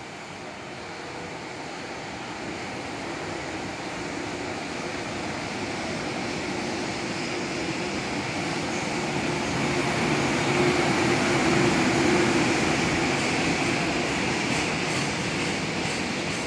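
EH500 electric locomotive hauling a container freight train past a station platform. It grows louder as the locomotive approaches and passes about two thirds of the way in, and then the container wagons keep rumbling by.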